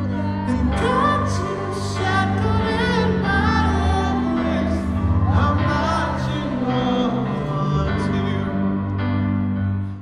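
Male pop singer singing live into a handheld microphone, his voice wavering and sliding on long notes over held accompaniment chords.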